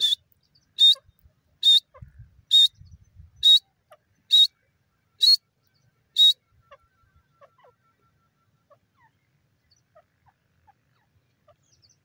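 Grey francolin calling: a series of eight loud, sharp, high-pitched calls, evenly spaced a little under a second apart, ending about six seconds in.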